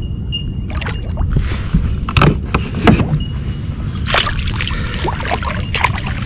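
A hooked bream splashing at the water's surface as it is scooped into a landing net beside a kayak, with several sharp splashes around two to three seconds in and again from about four seconds, over a steady low rumble.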